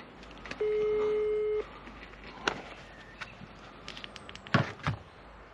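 Phone ringback tone over a speakerphone: one steady beep about a second long, the line ringing while a call is placed. A few knocks near the end, the two loudest about half a second apart.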